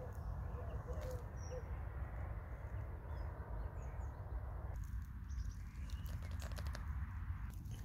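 Outdoor garden ambience: a steady low rumble with a few faint bird chirps, then from about five seconds in a run of soft crackling clicks.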